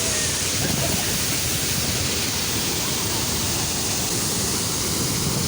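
Steady rushing of a waterfall, an even roar of falling water that holds at one level.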